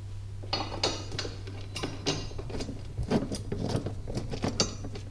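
Irregular metallic clicks and clinks, some ringing briefly, as steel bolts and brackets are handled and fitted to a golf cart's rear seat frame.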